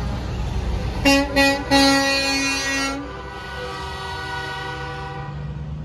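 Semi truck's air horn: two short blasts about a second in, then one longer blast lasting over a second. Under it, the steady diesel rumble of trucks rolling past.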